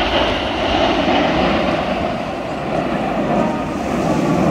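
A formation of BAE Hawk T1 jet trainers flying overhead, their turbofan engines making a loud, steady jet noise.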